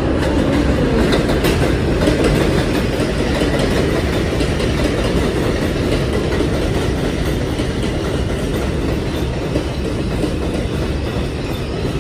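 New York City Subway 4 train cars rolling along elevated track, wheels clattering over the rail joints in steady, repeated clicks. A motor whine rises in pitch at the start.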